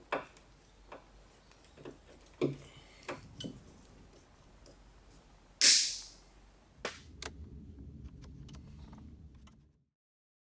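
Small clicks and plastic handling noises of a car's wiring loom being unclipped from the boot lid and its plastic sleeving peeled back, with one loud rasping noise just over halfway through. After that comes a faint steady low hum with a few ticks, which cuts off suddenly near the end.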